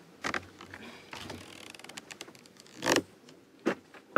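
A boat's clear deck hatch being unlatched and lifted open. Its plastic latch handles click and the lid knocks, giving a few sharp knocks with small ticks and rattles between them, the loudest about three seconds in.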